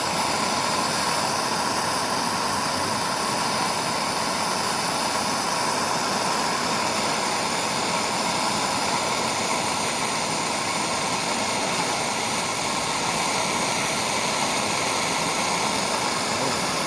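Gas torch flame hissing steadily, unchanged throughout, as it heats aluminium to melt a low-temperature aluminium solder rod into a hole.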